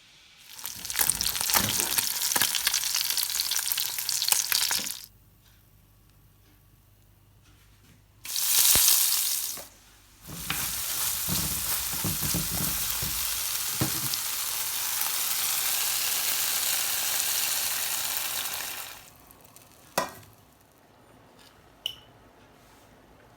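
A loud, even hissing that comes in three stretches, each starting and stopping abruptly, the last and longest lasting about nine seconds. Two sharp clicks follow near the end.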